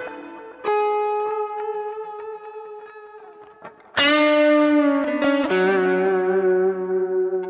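Ibanez Roadstar electric guitar played through effects pedals, a slow improvised lead: a long held note that slowly fades, then about four seconds in a loud new note with a slight vibrato, followed by another sustained note.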